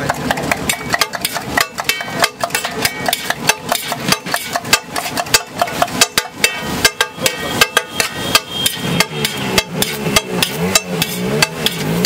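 Metal spatula knocking and scraping against a large flat griddle as a big heap of egg fried rice is scooped, tossed and mixed. The knocks come in quick, irregular strokes, several a second.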